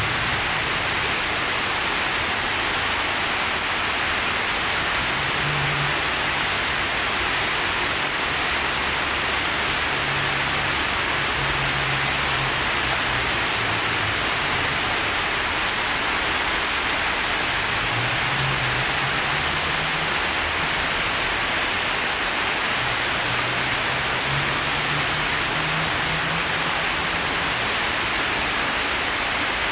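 Heavy rain falling steadily, drops splashing into the sheet of water on a paved path and onto forest leaves.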